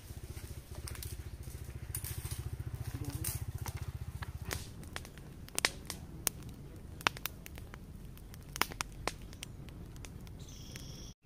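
Wood fire crackling, with scattered sharp pops from about four seconds in; before that a fast, low rhythmic rumble.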